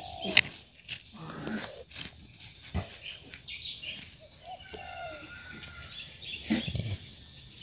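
Outdoor ambience of a steady high insect drone with a few faint bird calls in the middle. A handful of short soft knocks and rustles come from a hand pressing down soil around a transplanted seedling.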